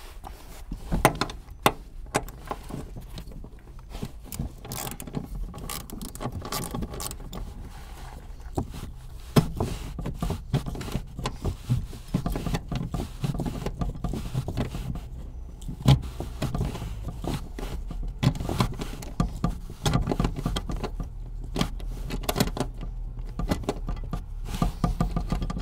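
Ratchet with a 14 mm socket clicking as it backs out a seat-rail mounting bolt, in quick runs of clicks with metallic rattles and knocks.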